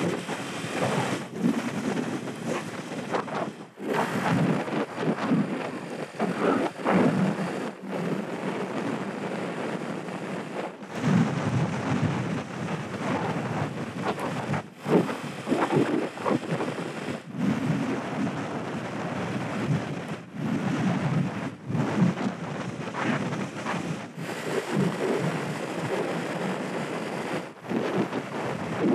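Wind buffeting the microphone on a 50cc moped being ridden along a road, a dense rushing noise heaviest in the low end. It cuts out briefly every second or two.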